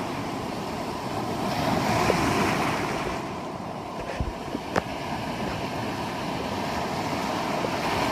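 Ocean surf washing on the shore, with wind on the phone microphone; the wash swells about two seconds in. A few short sharp clicks about halfway through.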